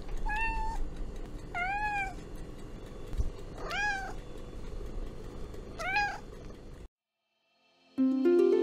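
A domestic cat meowing four times, each meow rising then falling in pitch, one to two seconds apart. After a short silence, plucked music begins near the end.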